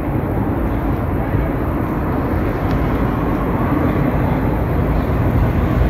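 Steady outdoor background rumble and hiss, heaviest in the low end, with no distinct events.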